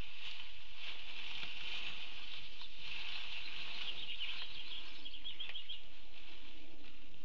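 Outdoor nest-cave ambience: a steady chorus of rapid high chirping, with a few soft scratches or shuffles.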